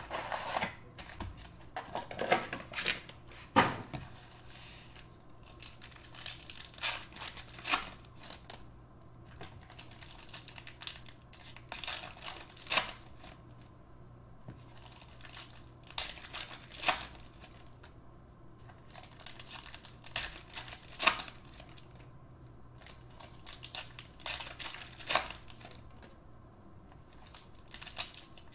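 Foil trading-card pack wrappers crinkling and rustling as packs are pulled from a box and handled, in scattered bursts every second or two.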